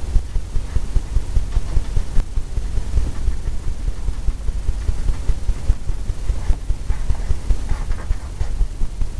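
Oil-paint brush scrubbing and dabbing on a stretched canvas, the taut canvas giving a run of rapid, irregular low knocks and rumble.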